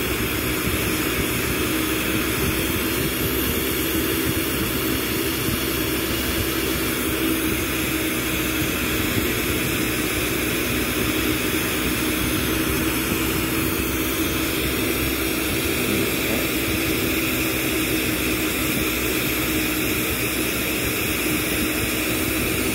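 Glassblowing bench torch flame and studio fan running: a steady, even roar with a low hum running through it.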